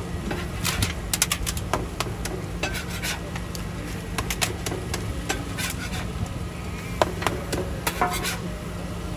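Metal spatulas scraping and clicking irregularly against a steel teppan griddle as okonomiyaki is scooped up, over a steady low hum.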